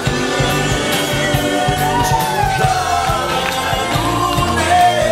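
Music with singing over a steady driving beat.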